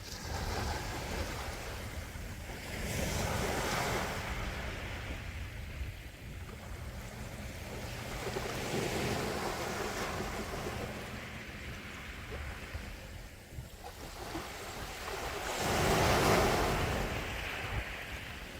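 Sea waves washing onto the shore, surging three times with the loudest wave near the end.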